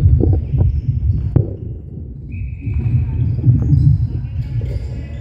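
Netball play on a wooden sports-hall floor: running footsteps and sneaker squeaks over a steady low rumble of the hall, with one sharp ball thud about a second and a half in.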